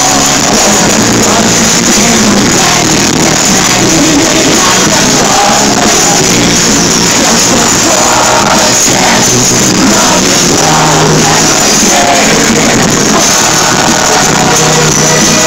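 Loud live pop-rock concert music with singing, heavily compressed and distorted in an arena recording.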